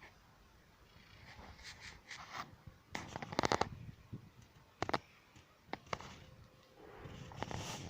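Handling noises: scattered clicks and knocks with rustling, with a quick rattling run of clicks about three seconds in and single knocks near five and six seconds.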